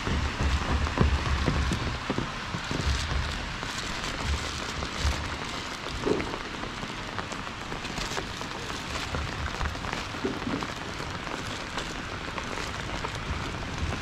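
Steady rain falling, with many small drop clicks and intermittent low thuds, heaviest in the first two seconds.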